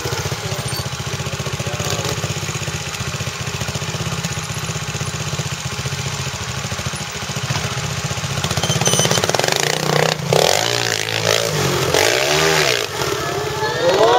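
Trials motorcycle engine idling with a steady rhythmic beat, then blipped through several quick revs that rise and fall in pitch in the last few seconds.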